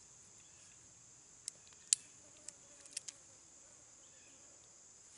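Sharp taps of a tomahawk against roasted hickory nut shells: five quick clicks over about a second and a half, the loudest about two seconds in. A steady high insect drone runs underneath.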